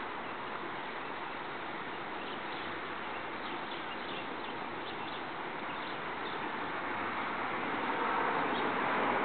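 Steady outdoor background noise with no distinct source, with faint high chirps in the middle that grow louder near the end.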